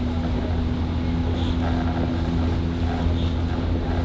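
Motor launch engine running steadily at speed, a constant hum with wind on the microphone.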